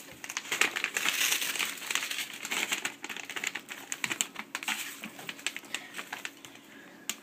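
Crinkling of a clear plastic bag of mixed-bed deionization resin as it is picked up and handled. The crackling is densest over the first three seconds, then thins out.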